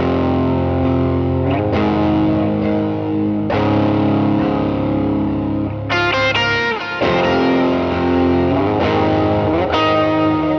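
Gibson Les Paul electric guitar through a Line 6 Helix preset built on a Tweed Deluxe amp model, set just short of breakup with a light overdrive, tape delay and hall reverb. Ringing chords change every second or two, with brighter picked notes about six seconds in.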